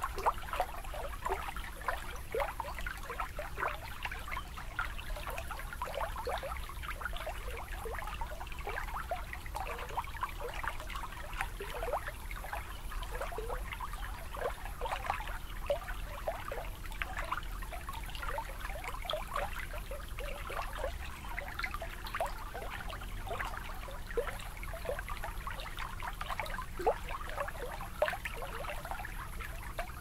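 Shallow water lapping and trickling against the shore: a steady, dense patter of small splashes and drips.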